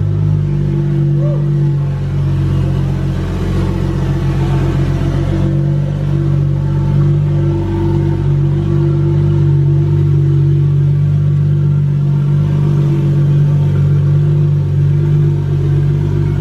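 Single-turbo Toyota 2JZ straight-six in a Mk4 Supra drift car running at a steady idle, loud and even.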